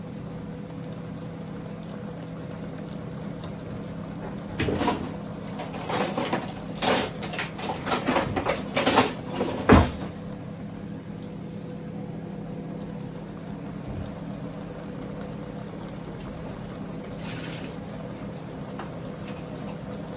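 Cooking pot and lid being handled: a run of knocks and clinks over about five seconds, the loudest near the end, over a steady low hum.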